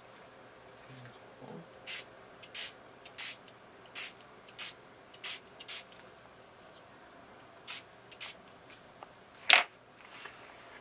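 Hand-pump spray bottle misting water onto Brusho watercolour crystals on paper: a string of short, quick sprays, the last one near the end the loudest. The water wets the crystals so the colour spreads.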